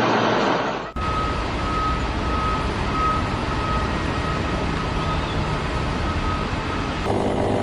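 Heavy machinery running steadily, with a repeated high beep over it. The sound changes abruptly about a second in and again near the end.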